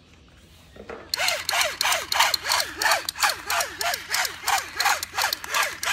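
Battery-powered toy assault rifle's electronic firing sound effect: a rapid string of 'pew' shots, about three a second, each a falling tone over a rasp of noise, starting about a second in.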